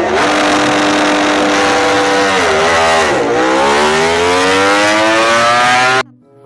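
Racing motorcycle engine sound effect, revving hard. It holds a steady high pitch, drops briefly a little past two seconds in, then climbs steadily as it accelerates, and cuts off suddenly near the end.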